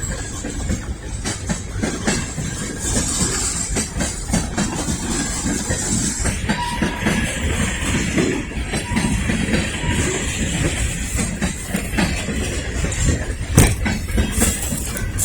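A long freight train of tank cars rolling past, a steady rumble of steel wheels on rail broken by irregular clicks over the rail joints.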